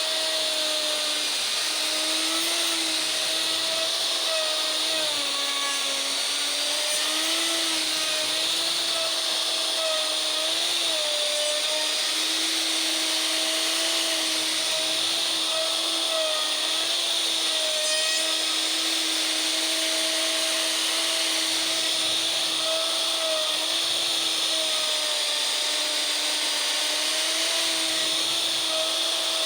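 Makita router running steadily as it levels an end-grain elm slab: a steady whine over a loud hiss, its pitch wavering and dipping slightly now and then.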